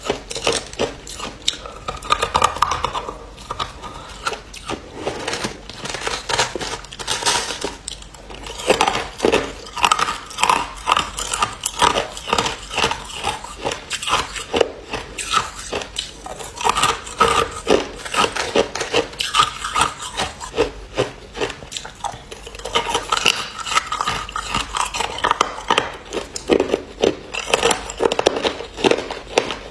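A person biting and chewing hard ice close to the microphone: a dense run of sharp crunches and cracks, coming in flurries with short lulls between.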